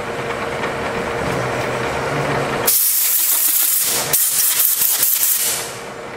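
Compressed-air blow gun blasting chips off a freshly milled steel part in a milling-machine vise: two loud hissing blasts, each about a second and a half long, starting nearly three seconds in. A steady machine hum runs underneath.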